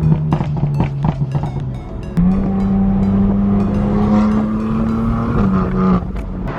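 Car engine running at steady revs, stepping up to a louder, higher drone about two seconds in and holding it before easing back, with music alongside.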